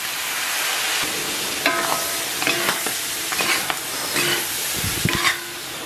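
Strips of pork liver and lung sizzling in a hot wok as light soy sauce is poured in and hisses on the hot metal, while a metal spatula stirs and tosses them, with a few short scrapes and clinks against the wok.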